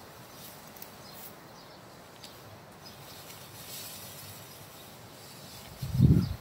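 Faint crackling rustle of dry grain stalks being gripped and pulled by hand, with a loud low thump about six seconds in.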